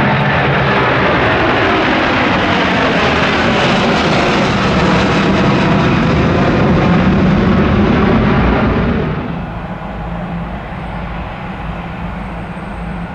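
Airbus A350 airliner's jet engines, loud as it passes close by, the noise falling away about nine seconds in.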